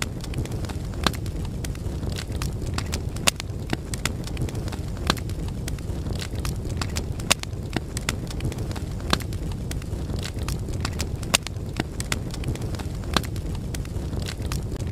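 Fire crackling sound effect: a steady low rush with sharp snaps and pops scattered irregularly through it.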